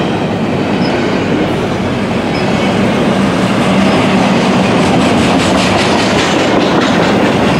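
Double-stack container well cars of a CSX intermodal freight train rolling by: a loud, steady rumble of steel wheels on the rails with some clatter, growing slightly louder about halfway through.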